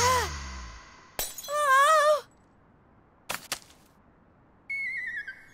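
Cartoon sound effects for a wooden recorder breaking apart. The music dies away, then comes a click, a short wavering tone, and two quick light clacks as the pieces land. Near the end a whistling tone falls in steps.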